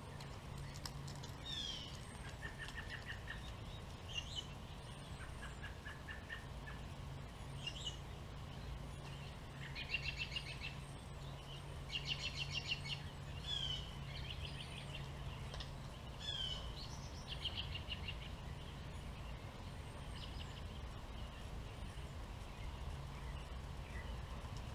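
A flock of American robins calling: scattered chirps and downward-swooping notes, with rapid chattering runs about ten and twelve seconds in, over a steady low hum.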